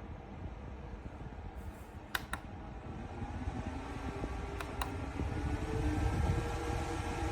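Small electric fan motor: a few pairs of sharp clicks, then its hum rising in pitch and getting louder as it speeds up, over a steady low rumble.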